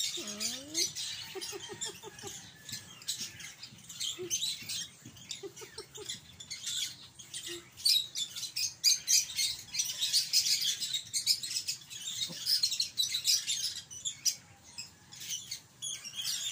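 Two puppies play-fighting: a few short, high yips and whines over a constant quick scuffling and scratching of paws and claws on concrete.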